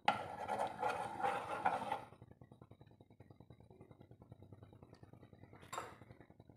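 A steel spoon scraping and pushing lumps of ghee around a nonstick frying pan for about two seconds, then quiet with one brief scrape or knock near the end.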